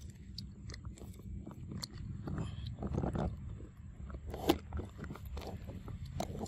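Scattered crackling and rustling of dry leaves and twigs as monkeys move about, with one sharp snap about four and a half seconds in.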